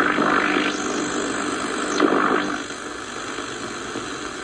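Static and hiss from a Sony ICF-F12S portable radio's speaker as it is tuned across the lower shortwave band, below 9 MHz, with no station coming in. A steady low tone sits under the hiss for the first half and stops, with a click about two seconds in.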